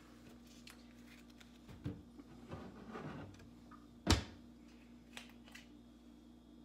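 Kitchen handling noises over a steady low hum: a few soft knocks and a rustle, then one sharp knock about four seconds in as a bottle is fetched from an upper cupboard, and two light clicks a second later.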